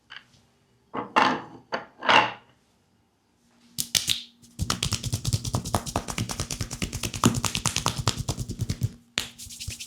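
Rapid percussive massage strokes tapping on a leg: a fast, even run of many taps a second lasting about four seconds, after a few louder swishing strokes in the first seconds.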